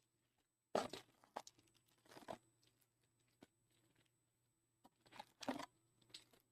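Packaging of a hobby box of trading cards being torn open and handled: a few short tearing, crinkling rustles with pauses between them.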